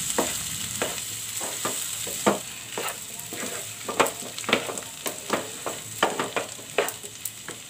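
Wooden spatula scraping and knocking against a pan as boiled potatoes are mashed into hot oil and spices, in irregular strokes about one or two a second, over a steady sizzle.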